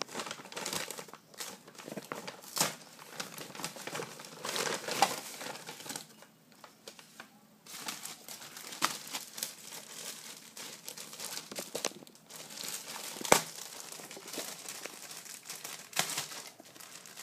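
Plastic packaging crinkling and rustling as it is handled during unpacking: a white plastic mailer, then a clear plastic bag around the pouch. Irregular crackles, with a short pause about six seconds in and one sharp, loud crackle about thirteen seconds in.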